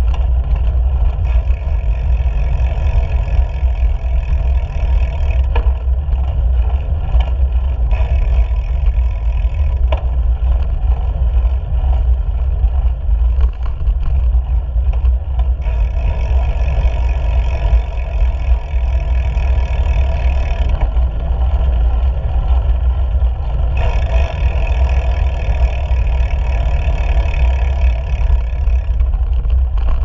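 Wind buffeting the microphone of a camera mounted on a moving bicycle, a steady heavy rumble, with road and tyre noise. A few light knocks come in the first ten seconds, and a higher hiss swells twice in the second half.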